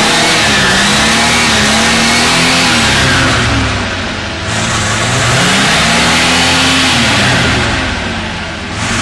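Pontiac Bonneville's engine running and being revved twice, its pitch climbing and falling back each time. The crankcase holds used deep-fryer oil in place of motor oil.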